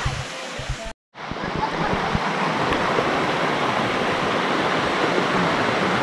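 Steady rush of water from a tiered waterfall cascade, broken by a brief total dropout about a second in.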